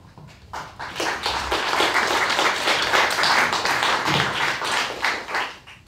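Audience applauding, starting about half a second in and dying away just before the end.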